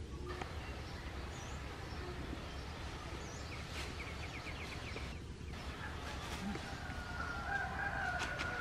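Rural outdoor ambience: a steady low background noise with a few short bird chirps and a quick trill of repeated notes, then a longer drawn-out animal call near the end.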